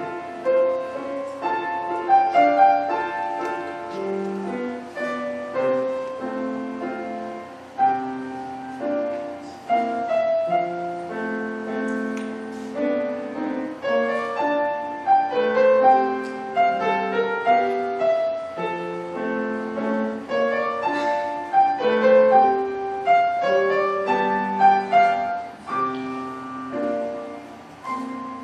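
Grand piano played solo: a continuous piece of many separate notes, a melody in the upper notes over lower accompanying notes.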